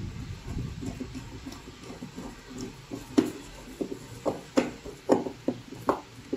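Screwdriver working a terminal screw on a two-pole circuit breaker. In the second half it gives a run of short, sharp clicks and knocks at uneven spacing.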